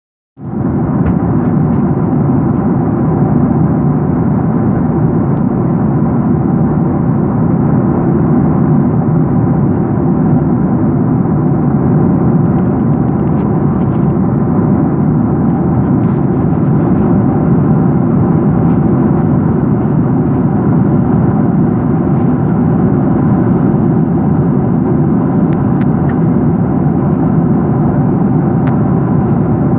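Steady drone of an airliner cabin in cruise flight: jet engine and airflow noise heard from inside the cabin, even and unbroken, with a faint steady hum in it.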